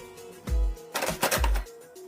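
Background music with a steady beat and a simple melody over it.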